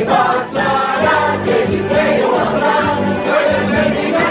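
Rondalla performing live: a mixed choir of men and women singing with guitars and other plucked strings accompanying.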